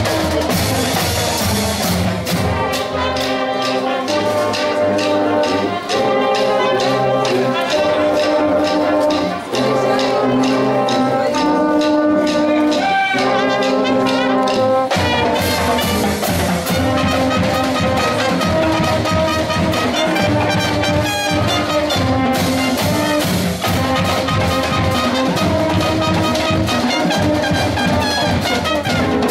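Marching band brass (trumpets and sousaphones) playing sustained chords. For the first half the upper brass play without the low end; about halfway through, the low brass and drums come in under the full band.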